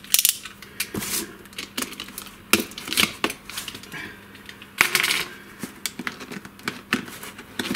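Cardboard product box being handled and picked open at its end flap, a run of sharp clicks and scratchy scrapes of fingers and a snap-off utility knife on the cardboard.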